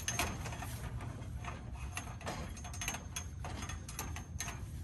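Fishing rod and reel being handled at the pier rail: light, irregular mechanical clicks and ticks, some with a faint high ring, over a steady low rumble.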